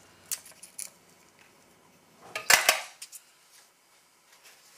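A Case pocketknife clatters down onto a stainless steel compartment tray about two and a half seconds in, with a short metallic ring. Before that there are two light clicks from the knife trimming the corner of a foil pouch.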